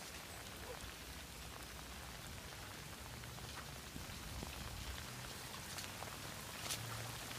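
Rain falling steadily on wet grass: a soft, even hiss.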